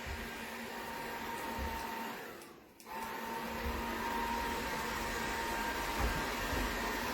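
DeenKee DK700 robot vacuum running, a steady motor and suction noise with a faint whine in it. The sound fades almost away about two and a half seconds in and comes straight back.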